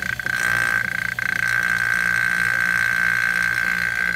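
Electric vacuum pump running with a steady high whistle and a low, evenly pulsing hum, its extraction hose drawing air as the transmission fluid runs out at the bottom of the pan.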